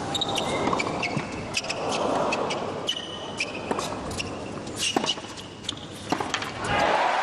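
Tennis rally on a hard court: sharp pops of racquets striking the ball, with sneakers squeaking on the court between shots. Near the end, as the point finishes, the crowd breaks into a loud cheer.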